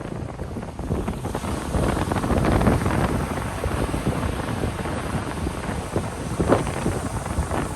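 Ocean waves surging and washing on a beach, with wind buffeting the microphone in a low rumble. The surf swells about two to three seconds in, and a brief sharp sound stands out about six and a half seconds in.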